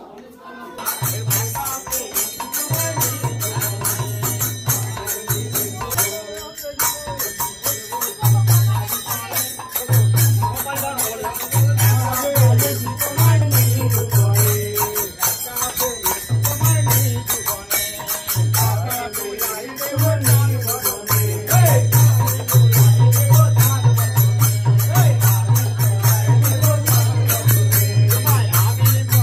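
Devotional kirtan: a group singing, with hand cymbals (kartal) clashing in a fast, steady jingle and a low hum that comes and goes. It starts about a second in.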